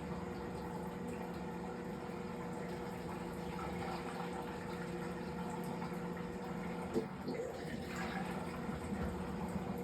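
Fisher & Paykel MW059NZ washing machine filling with water during a towels wash: a steady rush of water with a constant machine hum. There is a brief click about seven seconds in.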